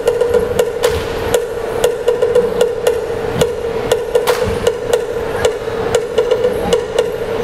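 Traditional Mindanao gong-and-drum music for the Binanog dance: a fast, even beat of about three strikes a second over a steady ringing gong tone.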